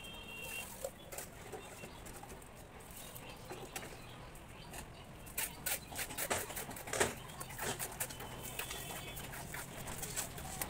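A mason's steel trowel scraping and tapping cement-sand plaster against a wall, in scattered irregular strokes, with a cluster of sharper knocks about six to seven seconds in.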